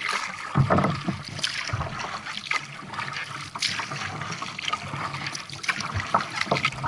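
Sea kayak paddling on calm water: the paddle blades dip and splash irregularly with each stroke, with water trickling and dripping in between.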